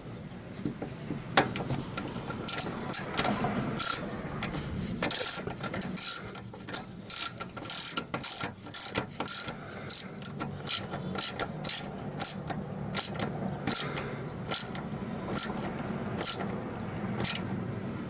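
Hand ratchet wrench clicking in repeated short strokes: runs of sharp, ringing clicks with brief pauses between them.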